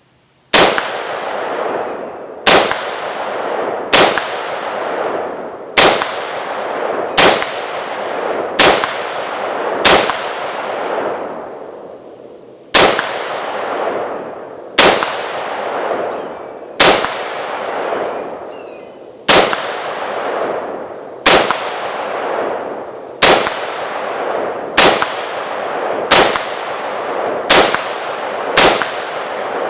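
AR-15 carbine (a Model 653 retro clone, 5.56 mm) fired semi-automatically, shot by shot, about twenty times. The shots come roughly every one and a half seconds and faster near the end, each followed by a long ringing echo.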